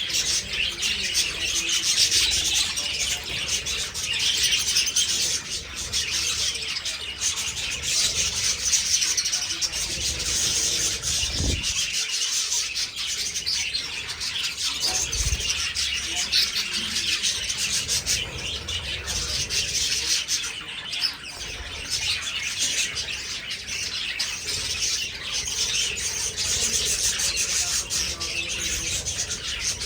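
A flock of budgerigars chattering and chirping together, a dense, unbroken warble of many birds at once.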